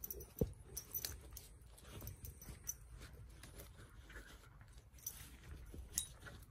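Two small dogs wrestling on a padded dog bed and blanket: scuffling, with scattered sharp knocks and thumps from paws and bodies, the loudest about half a second in and another near six seconds in.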